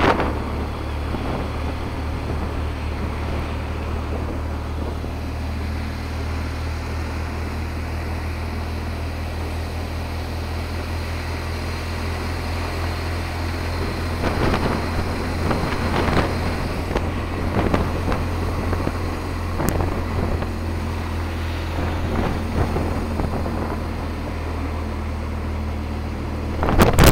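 Vehicle engine running steadily on the move, a low drone, with wind rushing over the microphone; gusts of wind noise come and go in the second half and swell sharply at the very end.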